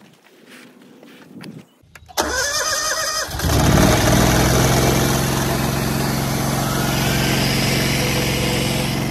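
Honda GX engine on a pressure-washer skid being cranked by its electric starter for about a second, then catching and running steadily.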